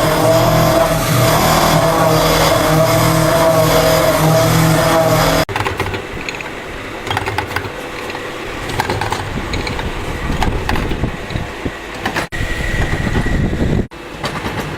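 Factory machinery running: a loud, steady machine hum with several steady tones. It cuts off about five seconds in to quieter machine noise with scattered clicks and knocks, broken by two more brief cuts near the end.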